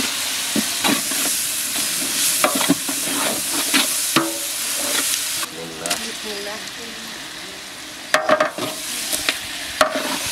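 Onion and spice masala sizzling in hot oil in a large aluminium pot, with a metal spatula stirring and scraping against the pot. About halfway the sizzle goes quieter as raw beef pieces go into the pot, and near the end the spatula clanks sharply against the pot twice.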